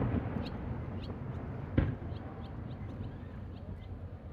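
Aerial fireworks shells: the low rumble of earlier bursts dies away and one sharp bang goes off about two seconds in.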